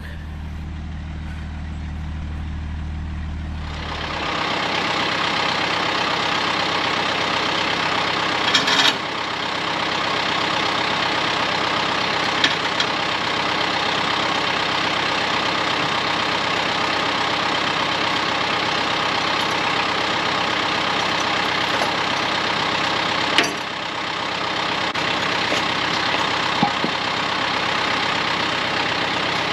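A vehicle engine running: a steady low hum for the first few seconds, then louder, even driving noise from about four seconds in, with a few brief knocks or rattles.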